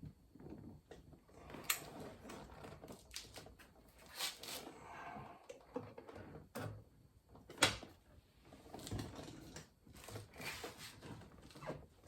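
Scattered clicks, taps and knocks of hand work inside an opened car door, with a 1/4-inch drive extension being used on the door's internals, and a few sharper clicks standing out.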